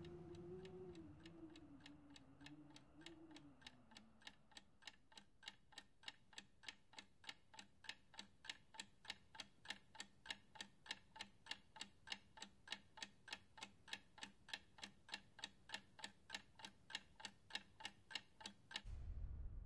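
A clock ticking faintly and evenly, a little over three ticks a second. A low held note fades away over the first few seconds, and a low rumble comes in just before the end.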